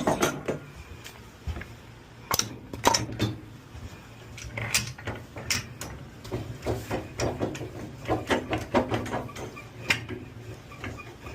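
Irregular metal clicks, clanks and knocks as a wheel is centered and clamped down on a tire-changing machine, over a steady low hum.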